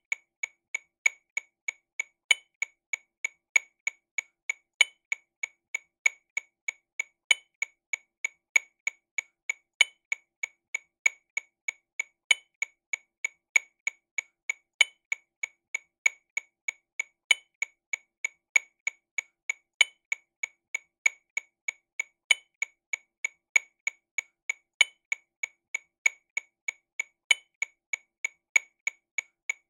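TAMA RW200 Rhythm Watch metronome clicking sixteenth notes at 48 BPM, a steady tick about three times a second. A louder accented click comes every two and a half seconds.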